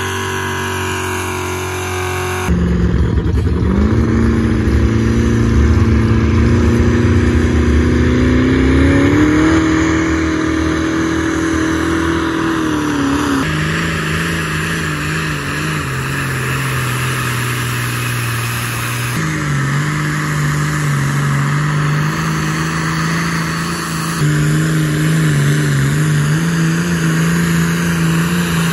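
Pulling vehicles' engines run at full throttle under load as they drag a weight-transfer sled. First a pickup truck, then diesel pulling tractors blowing black smoke, in several short clips cut one after another. In the longest clip the engine pitch climbs steadily for several seconds, then drops off.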